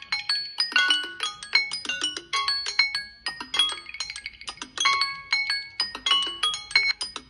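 Several smartphones' timer alarms ringing at once after their countdowns have run out: a dense jumble of short, bright melodic notes from different alarm tones overlapping and repeating.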